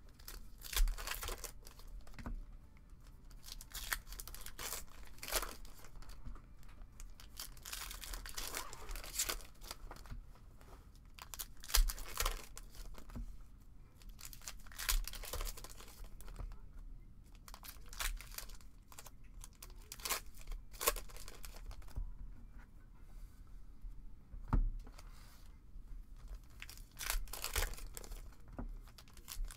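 Foil trading-card packs being torn open by hand, the wrappers crinkling and crackling in irregular bursts.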